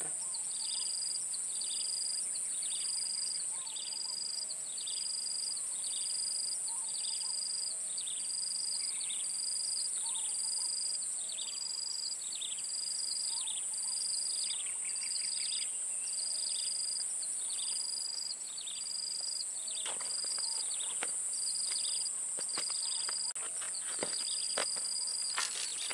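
Outdoor swamp ambience: a steady high-pitched insect drone, with a short high call repeated about once a second, each ending in a quick falling sweep. A few faint clicks come in the last few seconds.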